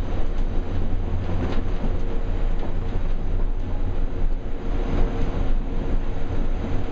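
The TI–Mirage tram car running along its guideway, heard from inside: a steady low rumble with a faint steady hum.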